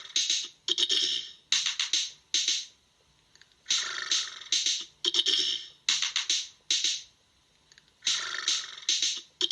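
A looping ringtone made of short percussive hits, a phrase of about six or seven sharp beats that repeats roughly every four seconds with a brief pause between repeats.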